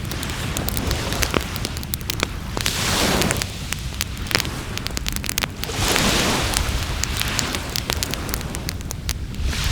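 Wood fire burning in a fire pit, crackling and popping steadily over a low rumble. Two swells of rushing noise rise and fall about three and six seconds in.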